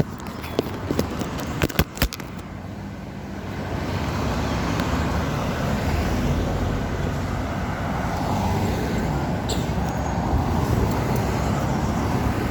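Road traffic noise, a steady rumble of passing cars that grows a little louder a few seconds in. A few sharp clicks or knocks sound in the first two seconds.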